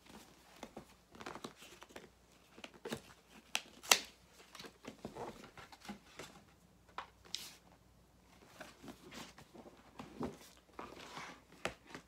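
Rustling, scraping and light knocks of a cardboard gift box being handled and opened, with one sharp tap about four seconds in.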